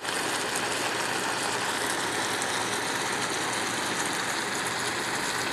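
Tomato-sauced ground tofu and vegetables simmering in a frying pan: a steady sizzling hiss with fine crackles.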